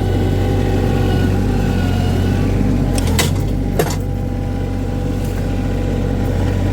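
Mini skid steer's engine running steadily while it works, with two sharp knocks a little past halfway through.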